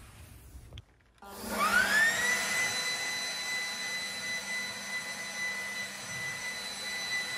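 Ryobi handheld leaf blower switched on about a second in: its whine rises in pitch as the fan spins up, then holds steady at full speed with a rush of air.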